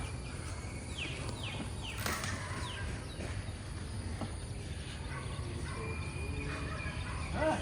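Outdoor ambience with birds calling: a short series of quick falling chirps about a second in, then fainter scattered calls over a steady low background hum.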